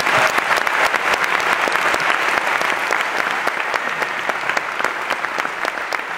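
Audience applauding: steady, dense clapping that eases slightly toward the end.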